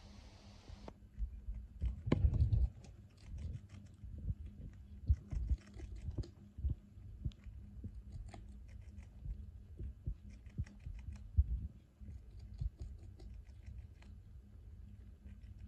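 Richardson's ground squirrel chewing cabbage leaf: quick, irregular crunching clicks, with low thumps, the loudest a couple of seconds in. A brief hiss cuts off about a second in.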